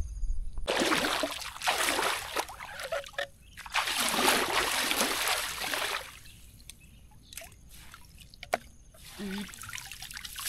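River water sloshing and splashing in two long bursts as a collapsible mesh dome shrimp trap is hauled through it, then water running and dripping out of the mesh as the trap is lifted clear near the end.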